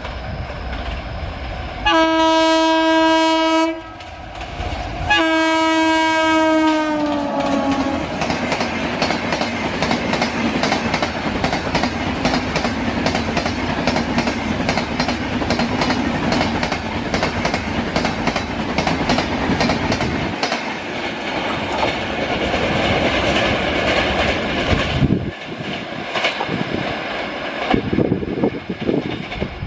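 Electric locomotive of a passing Indian Railways double-decker express sounding its horn twice, the second blast dropping in pitch as it ends. Then the double-deck coaches rush past with a rapid clickety-clack of wheels over rail joints, which fades about 25 seconds in.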